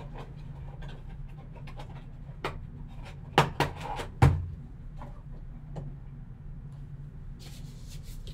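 Gloved hands handling a trading-card box and its sealed packaging on a table: scattered taps, clicks and light rustling, with a few sharper knocks about three and a half to four and a half seconds in, over a low steady hum.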